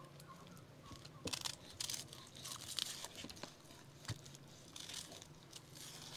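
Kitchen knife slicing and trimming raw beef tongue on a wooden cutting board: soft cutting and peeling noises with a few light taps of the blade against the board.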